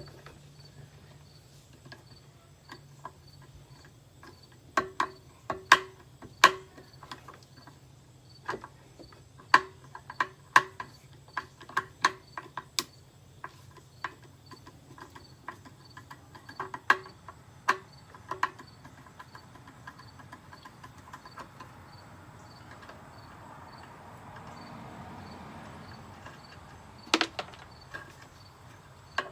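Irregular sharp knocks and clanks of small hand tools against a commercial vacuum cleaner's housing as it is being taken apart, in clusters with one louder knock near the end. A faint high tick repeats steadily underneath.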